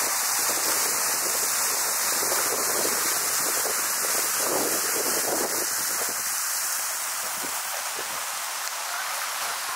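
Outdoor ambience of a crowded city square: a steady hiss with faint distant chatter of people.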